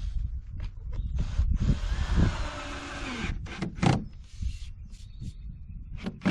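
Cordless drill driving a screw into the shed's wood trim for about a second and a half, its motor whine falling in pitch as the screw bites in. A few sharp knocks come before and after it.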